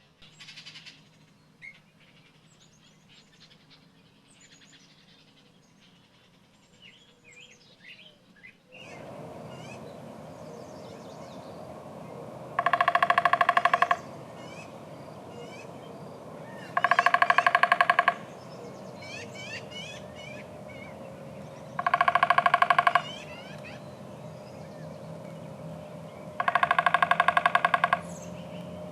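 Birds calling: faint scattered chirps at first. About nine seconds in, a loud, rapid rattling burst about a second long starts, repeated four times roughly every four to five seconds, over other birds chirping and a steady background hum.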